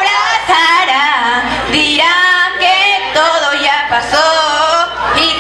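Young people's voices singing loudly, high-pitched and rising and falling through the phrases.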